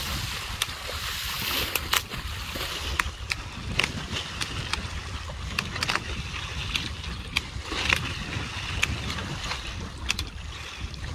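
Water sloshing and splashing around a small boat, with many short, irregular knocks and clicks over a steady low rumble.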